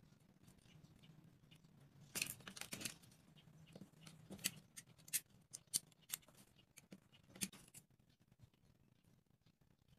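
A utility knife cutting a wooden popsicle stick against a wooden board, and the sticks being handled: a dense cluster of sharp scraping clicks about two seconds in, then scattered single clicks over the next few seconds.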